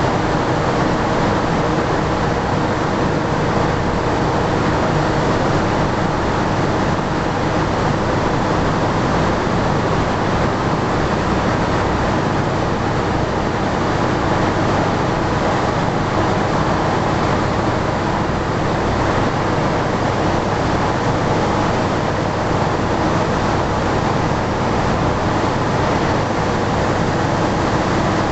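Vertical Francis turbine and generator unit of a hydropower station running: loud, steady machine noise with a deep hum underneath and a few faint steady tones, unchanging throughout.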